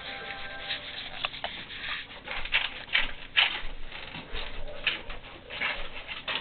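Gale-force blizzard wind gusting hard, carrying blowing snow. It comes as a quick, irregular series of hissing gusts, the loudest about three seconds in.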